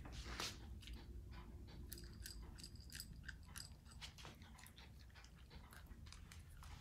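A dog chewing and crunching on food: a faint, steady run of small crunches and clicks, with a few light ringing clinks between about two and three and a half seconds in.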